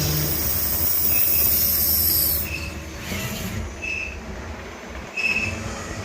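CNC machine cutting a brass component: a steady low machine rumble, with a loud hiss for about the first two seconds and short high squeaks about every second and a half.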